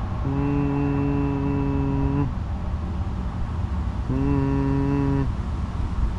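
Music from a newly installed stereo in an off-road buggy: a sustained low chord held for about two seconds, then held again for about a second, over a steady low rumble.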